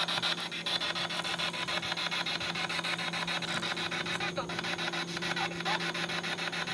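Spirit box radio scanner sweeping through stations: rapid, evenly chopped static over a steady low hum, a strange noise.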